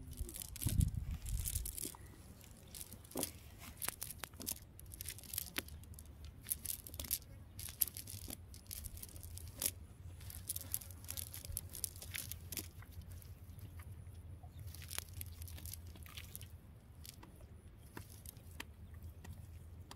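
Fishing net being handled and picked through by hand: faint, irregular rustling and crackling of the mesh, with a steady low rumble underneath.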